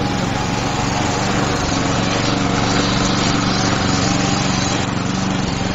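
Walk-behind lawn mower running steadily as it mows, its engine note holding even throughout.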